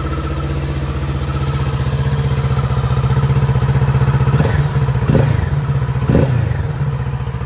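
Kawasaki Z650RS's 649 cc parallel-twin engine idling in neutral, then two quick blips of the throttle about a second apart near the end, the pitch jumping up and dropping straight back to idle.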